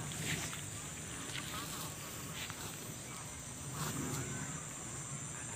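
Insects in the rice paddies keeping up a steady, high-pitched drone, with a few brief clicks scattered through it.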